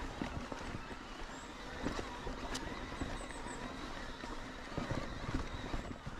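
Mountain bike riding over a rough trail: tyre noise with scattered knocks and rattles from the bike over the rocky ground, and a low buffeting rumble on the microphone.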